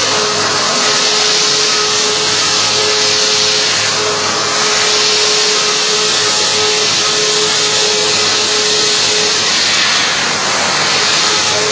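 CNC machine running while machining a workpiece: a steady, loud hiss with a constant whine over it.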